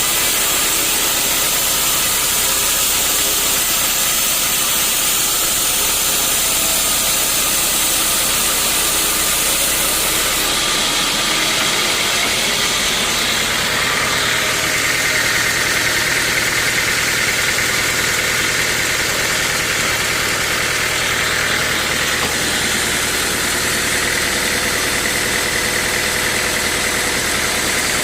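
Sawmill machinery running steadily with an engine drone. About ten seconds in, the high hiss drops away, and from about fourteen seconds a steadier whine holds.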